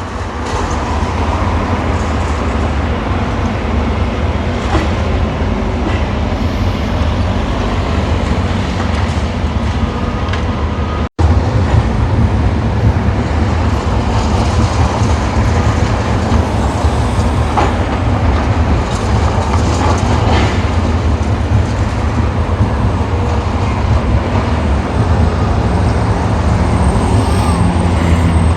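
Demolition machinery at work: a steady low engine rumble with irregular knocks and clatter over it, cutting out for an instant near the middle.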